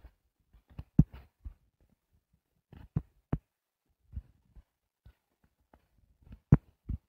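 Irregular soft thumps and taps of a finger or stylus on a tablet's touchscreen while drawing. The two loudest come about a second in and near the end.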